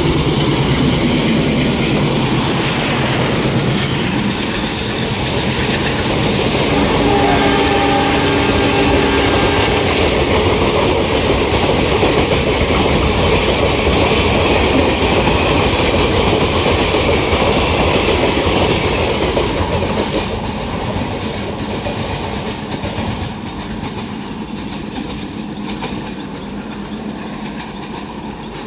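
ALCO WDM-3D diesel locomotive running through at full throttle with its express train. The engine is loud at first, then the coaches rush past with clickety-clack of wheels over rail joints. The sound fades from about twenty seconds in as the train moves away.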